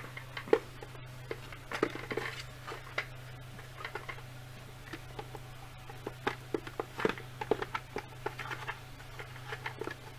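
Hasbro Lightning Collection Red Ranger helmet, a hard plastic helmet, being handled and pulled down over a head: irregular clicks, taps and rubbing of plastic against hands and head, over a steady low hum.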